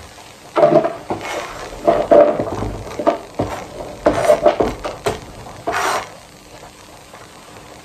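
Kitchen clatter: pots, dishes and utensils being handled and set down, about half a dozen knocks and clanks with a little ringing, then a quieter stretch in the last couple of seconds.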